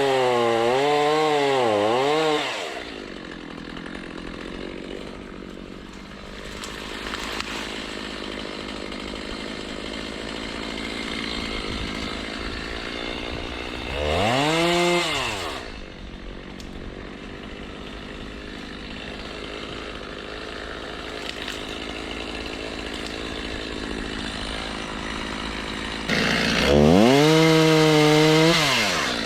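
Gasoline chainsaw revving hard in three bursts, one at the start, one about halfway and one near the end, its pitch wavering up and down. It drops back to a lower, steady idle in between.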